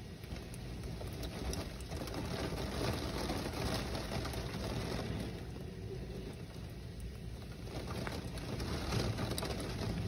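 Heavy rain in gusty wind, hissing steadily and tapping on window glass. The rush swells and eases, louder in the middle and again near the end.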